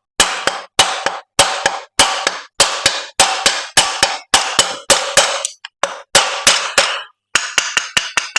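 A hammer repeatedly striking to drive a stuck piston pin out of an engine's connecting rod, about three sharp metallic blows a second, each with a short ring, with a brief pause a little past halfway.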